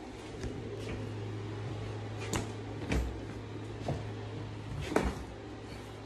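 A handful of scattered knocks and clunks, the loudest about five seconds in, over a steady low hum.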